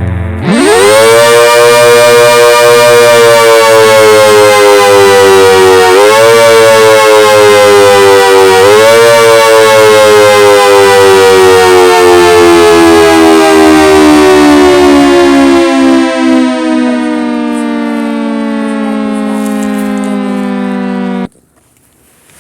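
ACA Hurricane outdoor warning siren winding up to a loud wail within the first second. Its pitch surges up twice, about 6 and 9 seconds in, then slides slowly lower until the sound cuts off abruptly about a second before the end.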